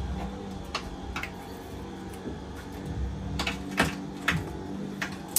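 Irregular sharp clicks and light knocks of hard parts and tools being handled while the old faucet and sink are taken apart, about six spread unevenly, with a faint steady hum beneath.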